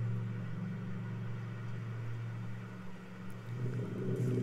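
A steady low hum that fades about three seconds in, giving way to a rougher, rustling low sound near the end.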